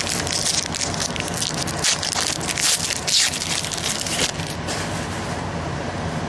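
2011 Prestige football trading cards being handled and shuffled: a dense papery rustling and crackling, busiest in the first four seconds, then thinning out, over a steady low hum.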